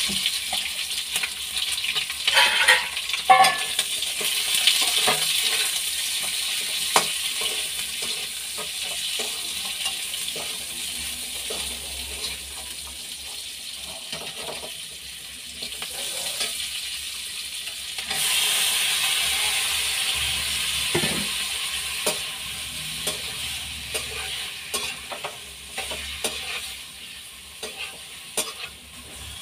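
Sliced onions sizzling in hot oil in a steel kadhai, stirred with a spatula that scrapes and clicks against the pan. The sizzle swells again about eighteen seconds in.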